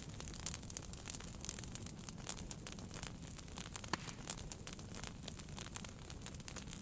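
Wood fire burning in a fireplace: irregular crackles and sharp pops over a steady low rumble of the flames, with a louder pop about four seconds in.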